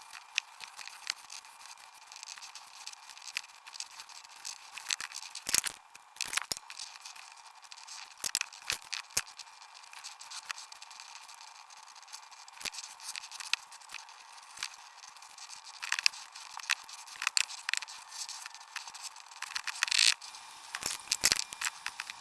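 Pencil drawing on paper: irregular scratchy pencil strokes, with now and then a sharper tap or click as the pencil or paper is handled.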